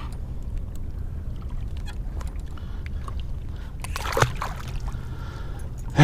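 Steady low rumble with faint clicks and a brief, louder scrape about four seconds in: handling noises as a fishing hook is worked free of a hooked turtle's mouth.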